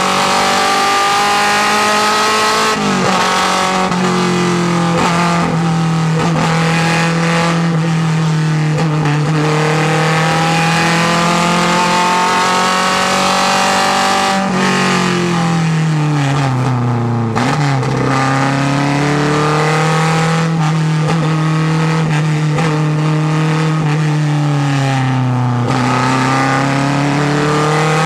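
Lancia Fulvia HF F&M barchetta's narrow-angle V4 racing engine pulling hard through the gears on a hillclimb run. The note dips briefly about three seconds in. Past the middle it falls for a few seconds, then climbs again, and it dips once more near the end.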